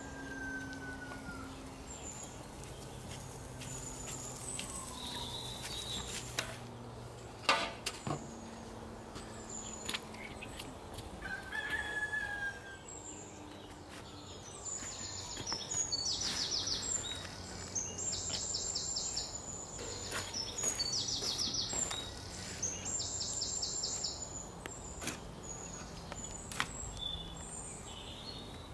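Yard birds: small birds chirping, with runs of rapid high trills through the second half, and a rooster crowing. A single sharp knock comes about a quarter of the way in.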